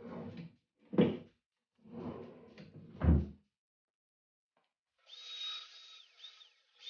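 A few separate knocks and clunks of metal workpieces being handled and set down, the sharpest about one second and three seconds in. From about five seconds a steadier high-pitched sound comes in, holding one tone that dips twice.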